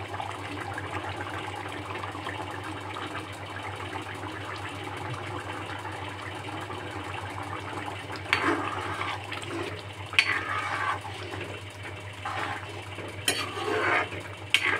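Egg and potato curry simmering in a metal karahi, a steady hiss. From a little past halfway a metal spoon scrapes and stirs against the pan several times.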